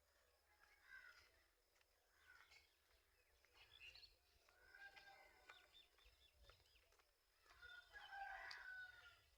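A rooster crowing faintly, the longest and loudest crow coming near the end, among other birds' calls.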